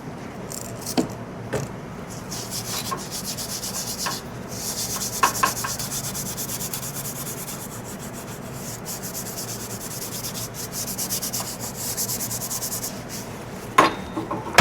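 Steel-wool scrubbing pad rubbing the chrome housing of an old dash-mounted car heater in fast back-and-forth strokes, with a couple of light knocks. The scrubbing starts about two seconds in and stops shortly before the end.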